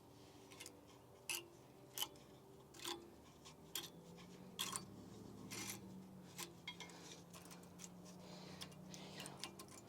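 Flathead screwdriver prying worn brake pads out of the rear caliper bracket: a string of light, irregular metal clicks and taps, roughly one a second, over a faint steady hum.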